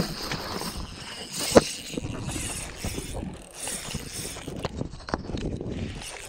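Spinning reel being cranked, with scattered clicks and knocks; the loudest is a single sharp click about a second and a half in.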